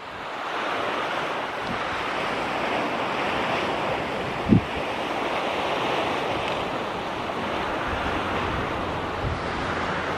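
Steady rushing of wind and small waves lapping along the shore, with a brief low thump about four and a half seconds in.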